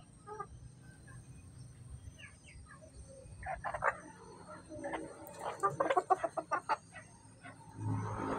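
Bantam chickens feeding on hard dirt ground: short clusters of quick pecking taps and soft clucks, with the densest run about two-thirds of the way through.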